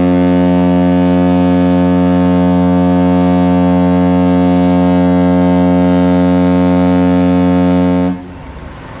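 The Norwegian Gem's ship's horn sounding one long, deep, steady blast with many overtones, stopping sharply about eight seconds in.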